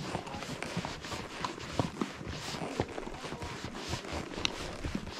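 Horses' hooves clopping at a walk on a dirt and rock trail: an uneven run of knocks and scrapes, several a second.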